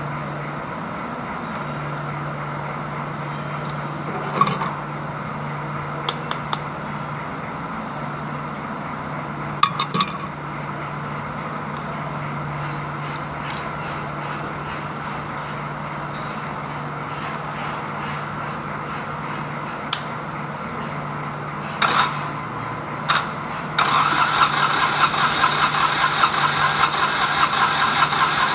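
A steady low hum with a few sharp clicks, then near the end a Kubota D905 three-cylinder diesel starts abruptly and runs with a fast, even clatter.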